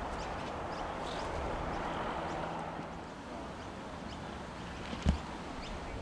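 Wind rushing and buffeting over the microphone, a steady rumbling noise, with one sharp thump about five seconds in.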